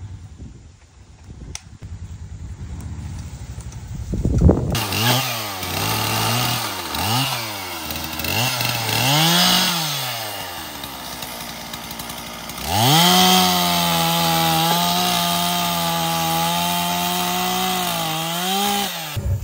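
Gas chainsaw comes in sharply about four and a half seconds in and is revved in short blips, about one a second, for several seconds. It is then held at full throttle for about six seconds, cutting through a felled tree trunk, and drops off just before the end.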